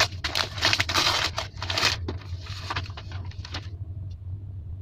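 Gift wrapping being torn open and crinkled by hand: dense, irregular rustling and crackling for about two seconds, then a few softer rustles that die away.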